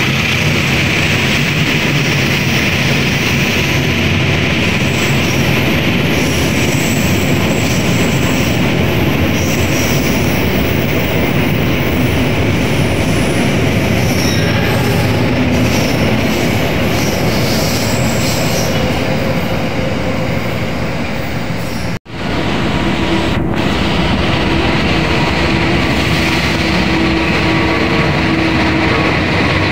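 A passenger train of stainless-steel coaches runs through the station with steady rolling noise of wheels on rails. After a cut about 22 seconds in, a KAI CC206 diesel-electric locomotive rolls past close by, its engine and wheels making a steady hum.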